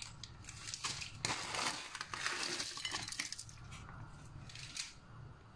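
Faint, scattered crinkles and light clicks from handling a plastic instant-noodle packet and dry Samyang noodle blocks on a ceramic plate. The sounds are busier in the first half and sparser towards the end.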